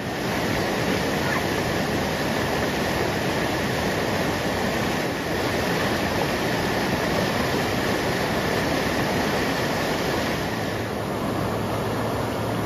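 Flash-flood water rushing over a road and through a desert wash, a steady rush of churning muddy water. A low steady hum comes in near the end.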